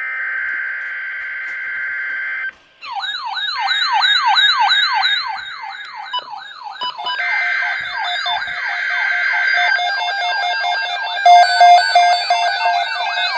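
Emergency Alert System tones between two broadcast messages. There are two stretches of steady buzzy header-data sound, and electronic siren wails sweep rapidly up and down, several layered at once, from about three seconds in. Steady alert tones join in the last few seconds, when it is loudest.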